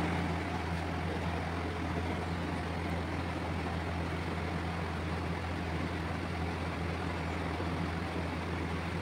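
Evaporative air cooler running: a steady low motor hum under an even rush of fan air.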